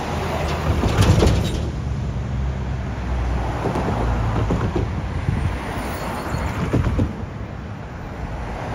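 Road traffic passing close by: motor vehicles driving past with a steady low rumble, loudest about a second in.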